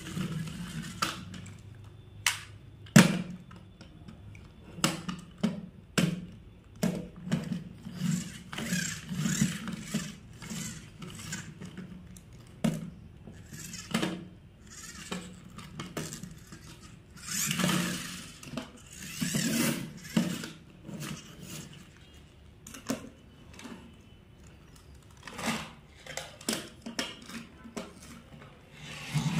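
Plastic toy cars being handled on a wooden tabletop: repeated clacks as they are set down and knocked together, with short rolling and scraping rubs of their wheels on the wood.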